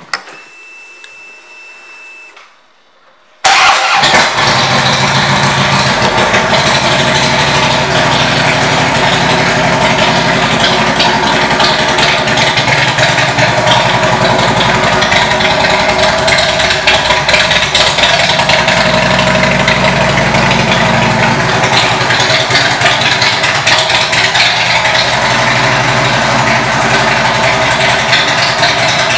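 2011 Harley-Davidson Street Glide's V-twin engine, fitted with aftermarket Rinehart exhaust pipes, being started. After a faint whine of a couple of seconds, it catches suddenly about three and a half seconds in, then idles loudly and steadily.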